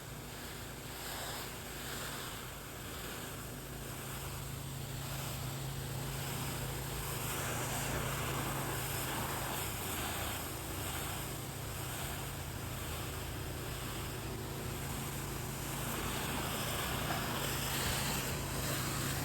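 Pressure washer working on concrete: a steady low engine hum under the hiss of the water spray, which swells and fades about once a second.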